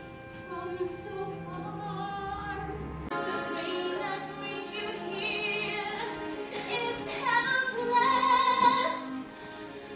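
A woman singing a slow musical-theatre ballad over accompaniment. The recording cuts abruptly to a different singer's version about three seconds in, and a louder held note with vibrato comes near the end.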